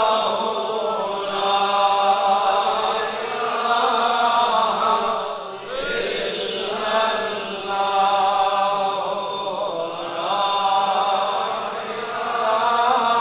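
A congregation of men chanting zikr together: a devotional phrase repeated over and over, with the chant swelling and falling every two to three seconds.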